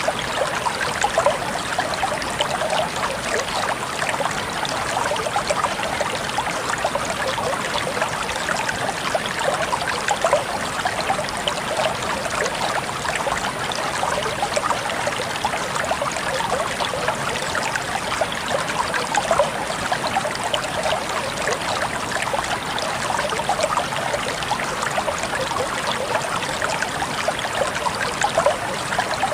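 River or stream water flowing and trickling steadily over rocks, a continuous babbling with fine splashing detail.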